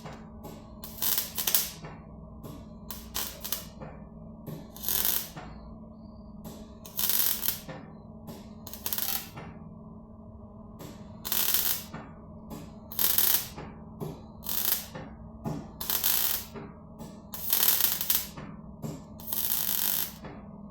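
MIG welder laying short tack and stitch welds on a car's new body-panel patches: a string of about twenty short bursts, each up to about a second long, with brief pauses between.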